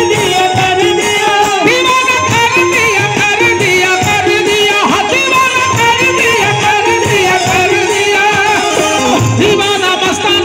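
A live bhajan played through a PA: a man sings a wavering melody into a microphone over harmonium, while barrel hand drums (dholak) keep a steady beat.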